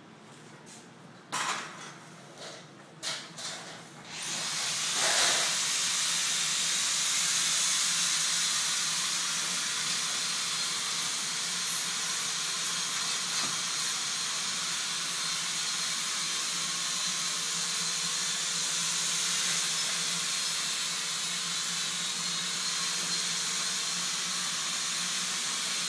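A few metal clinks and knocks, then about four seconds in a loud, steady hiss of gas or air from a hand-held tool working along a metal door panel, running on without a break.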